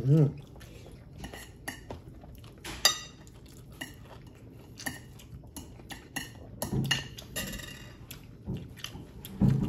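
Spoons and cutlery clicking and clinking against dishes and bowls while eating, with scattered light clicks and one clearer ringing clink about three seconds in.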